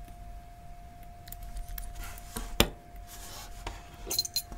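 Matchbox diecast toy cars being handled: scattered light clicks and taps of small metal and plastic models, the sharpest one about two and a half seconds in.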